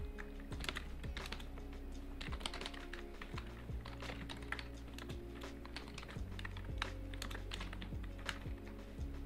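Typing on a computer keyboard: irregular, quick keystroke clicks as a line of code is entered, with short pauses between bursts.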